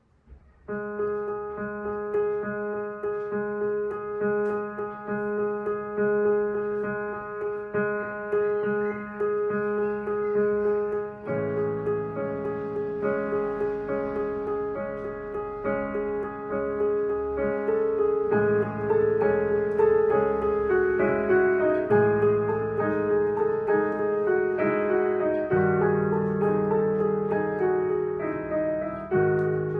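Piano music: after a brief pause, a slow pattern of held, repeating notes, with lower bass notes joining about eleven seconds in and the melody moving more in the second half.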